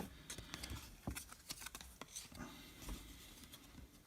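Baseball trading cards being handled and shuffled by hand: faint, irregular clicks and soft rustles of card stock.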